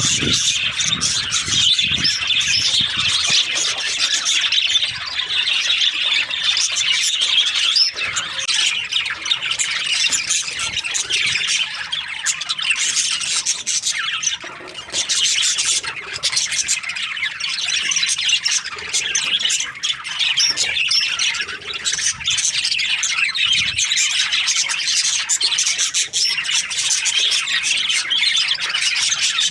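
A flock of budgerigars chattering without pause, a dense mix of short high chirps and squawks.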